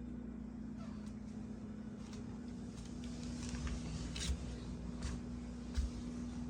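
Whirlpool refrigerator running with a steady low hum, with a few soft clicks and knocks of handling in the second half.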